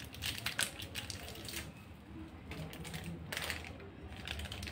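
Scattered short crinkles and rustles of a small instant-coffee sachet being handled, over a faint steady low hum.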